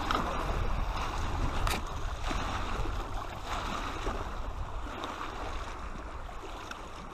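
Small waves lapping and washing over the rocks of a lakeshore, with wind rumbling on the microphone.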